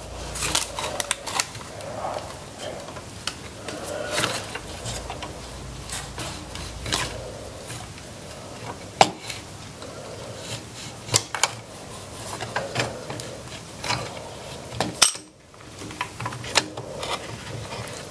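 Metal clamps clinking and knocking against wood and each other as they are set on a glued joint and their screws tightened: a scattered series of sharp clicks and knocks.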